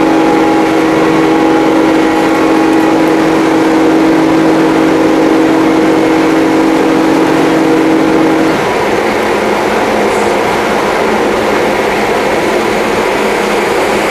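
A ship's horn sounds one long, steady blast and cuts off about eight and a half seconds in, leaving a steady rush of noise.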